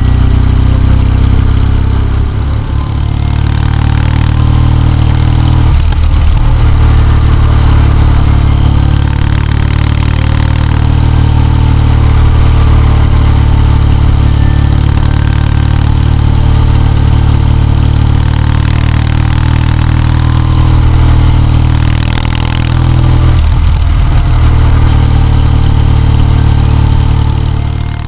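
Kawasaki W650's air-cooled parallel-twin engine running steadily with a low, even exhaust note, dipping briefly twice.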